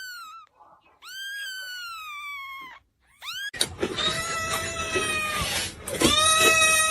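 Cat meowing: one long meow falling in pitch, then after an abrupt change, louder, drawn-out yowling calls over background noise.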